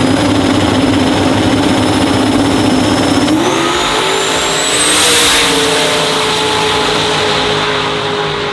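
Drag-race car engine running at high revs: it holds one pitch for about three seconds, then revs up and holds a higher pitch. A high whine rises with it.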